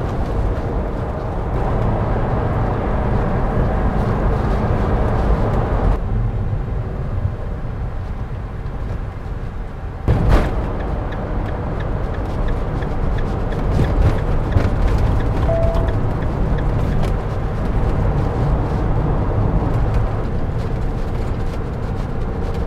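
Road and engine noise inside a motorhome cab at motorway speed, a steady low rumble with tyre roar. It changes abruptly about six and ten seconds in, where the footage jumps to another stretch of road.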